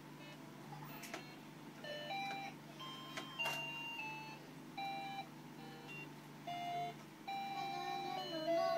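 Electronic toy beeping out a string of short, steady notes that jump between pitches, like a simple melody, with a few sharp clicks between them.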